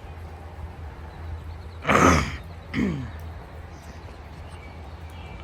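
Two short vocal sounds close to the microphone, about a second apart, the first loud with a falling pitch, over a steady low rumble of wind on the microphone.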